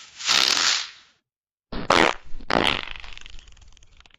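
Fart sound effects: a breathy, hissing fart of about a second, then, after a short gap, a longer one with two loud blasts that trails off in a quick rattle of pulses.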